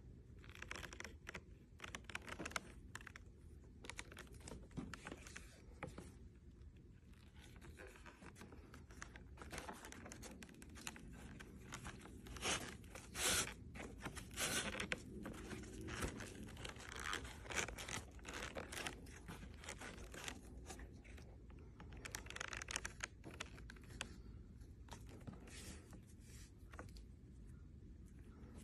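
Leather strap being pulled and worked through a leather rosette and saddle slot, with leather rubbing and scraping on leather in short, irregular strokes, loudest about halfway through.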